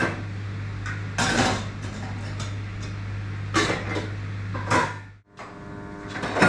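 Metal pots, pans and lids clanking as they are lifted and set down on a gas stove: four or five separate clatters, a second or more apart. A steady low hum runs underneath and cuts off about five seconds in.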